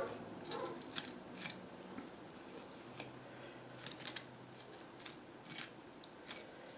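Faint, irregular scrapes and light ticks of a knife spreading almond butter across waffles.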